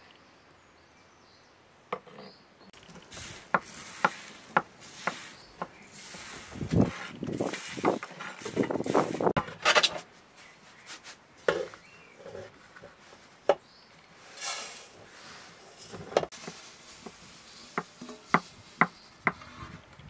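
Uncooked rice rustling and rattling on a large metal tray, with scattered sharp clicks and taps of grains and tray. The rustling thickens for a few seconds in the middle, and the rice ends up tipped into a metal cooking pot.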